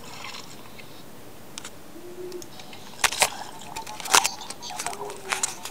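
Low steady hiss, then several sharp clicks and scrapes about three seconds in and again around four seconds, with smaller ones near the end.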